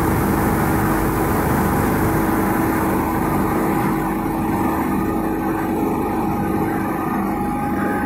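Double-sided wide-belt sanding machine running steadily with a constant hum; a high hiss fades about three seconds in.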